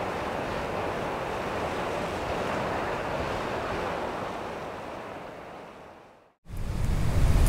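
Steady wind noise, gusty air rushing over the microphone, fading out to silence about six seconds in. Just after, louder low wind rumble on the microphone starts abruptly.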